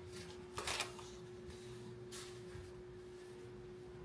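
Two brief, faint rustles of wrapping being taken off a dash top, about two thirds of a second and two seconds in, over a steady hum.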